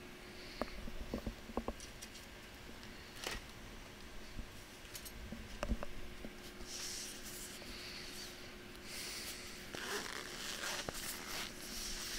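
Handling noise on a workbench: scattered light clicks and taps, then stretches of rustling from about halfway through, over a faint steady electrical hum.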